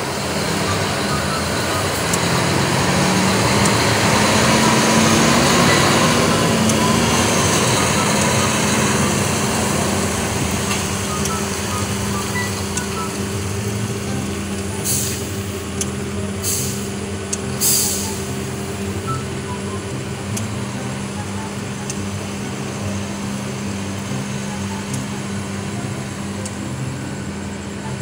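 Diesel engine of a tractor-trailer running as the rig is manoeuvred and backed up. Three short bursts of air hiss from its brakes come a little past halfway, the last one the loudest.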